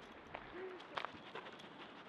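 Faint footsteps on a gravel road, with a few sharper clicks and one short low whine a little before the middle.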